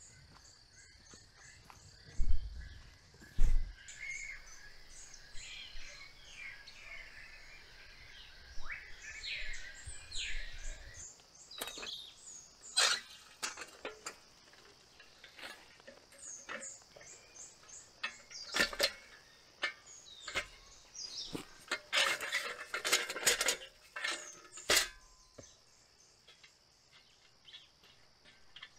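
Birds chirping and calling over a steady high-pitched insect drone. In the second half come scattered sharp metal clinks and knocks as a small homemade metal wood stove is handled, thickest about two-thirds of the way through.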